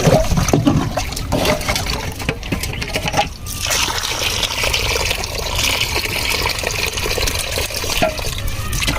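Water splashing and sloshing with scattered knocks, then from about three and a half seconds in a steady trickling rush of water.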